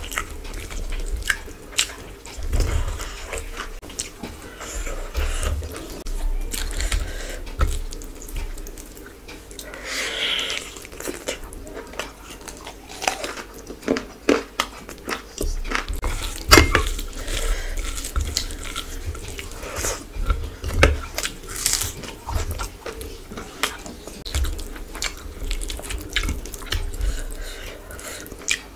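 Close-miked eating sounds of a person chewing rice and chicken curry eaten by hand: irregular wet mouth clicks, smacks and bites, with an occasional crunch.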